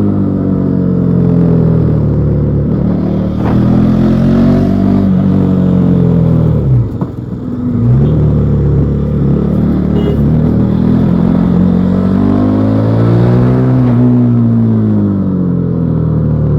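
Bajaj Pulsar NS400Z's single-cylinder engine through its stock exhaust, heard while riding: the revs rise and fall several times as the rider works the throttle, with one brief dip about seven seconds in before it pulls up again.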